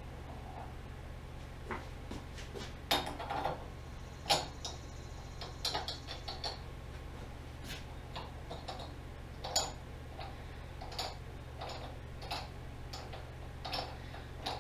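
Scattered light metal clicks and clinks of steel parts being handled and fitted by hand at a metal lathe's headstock spindle, loudest about three and four seconds in, over a steady low hum.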